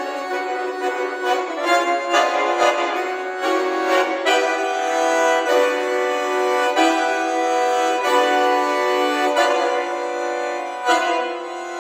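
Solo bayan (chromatic button accordion) playing sustained chords in several voices, broken by several sharp, accented attacks. It swells louder near the end.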